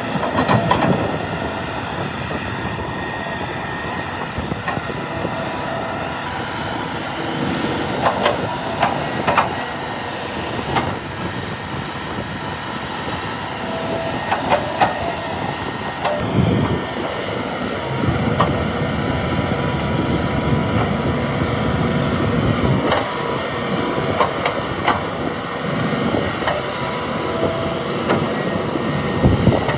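Large hydraulic excavator at work: diesel engine running steadily under load, with repeated metallic clanks and knocks from the bucket and the rock and soil it handles.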